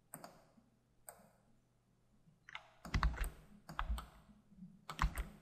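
Clicking and typing on a computer keyboard and mouse: a couple of faint clicks at first, then a quicker run of louder clicks and key presses from about halfway.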